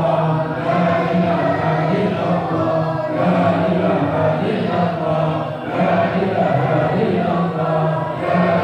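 Group of men chanting Arabic Islamic prayers in unison, one man leading through a microphone; a continuous, steady chant with short breaks between phrases.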